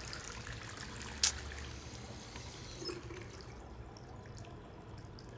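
Water trickling from a washbasin tap, thinning out after about three and a half seconds, with one sharp click about a second in.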